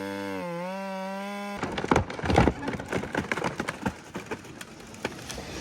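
A steady pitched tone that dips briefly in pitch and cuts off about a second and a half in, then a run of irregular sharp cracks and snaps of wood splintering.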